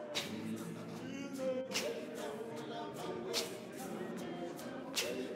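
Zion church choir of men and women singing a cappella, with a sharp hissing accent about every second and a half.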